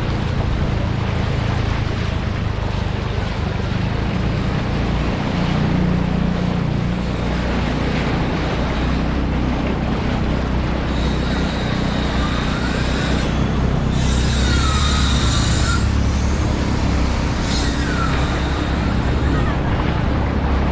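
Traffic moving along a flooded road: vehicle engines running with a steady low rumble over a wash of water noise. There are a few short high squeals in the second half.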